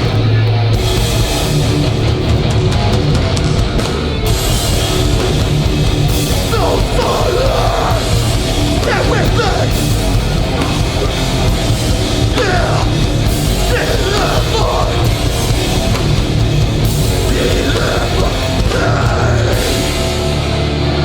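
Live hardcore band playing a song at full volume, with distorted guitars and drums driving steadily throughout.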